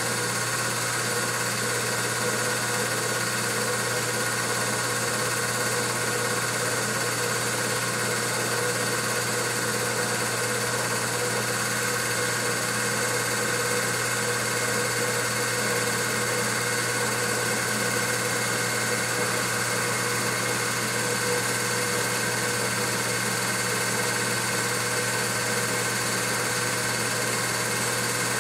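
Film projector running: a steady mechanical whirr and hum that holds unchanged.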